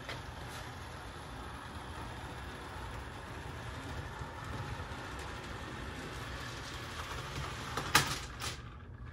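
HO-scale Union Pacific Big Boy model steam locomotive running along the track: a steady low hum of its motor and rumble of its wheels on the rails, with one sharp click about eight seconds in.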